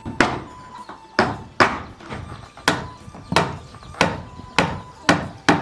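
Cleaver chopping big bones: about nine heavy chops, roughly one every half second, each with a short ring.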